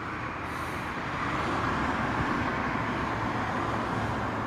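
Road traffic noise: a steady rush of passing vehicles that grows louder over the first couple of seconds and then holds.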